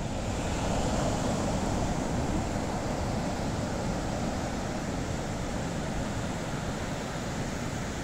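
Small waves breaking at the shoreline and washing up onto a sandy beach: a steady hiss of surf that swells slightly about a second in.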